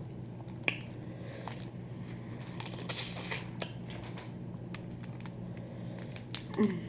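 Boiled crawfish being peeled and eaten by hand close to the microphone: a sharp crack of shell just under a second in, a longer crunching, sucking noise around the middle, and a cluster of clicks with a brief falling vocal sound near the end, over a steady low hum.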